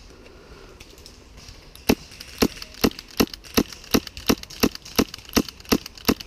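Tokyo Marui MK23 gas airsoft pistol firing about a dozen shots in a steady string, roughly three a second, starting about two seconds in.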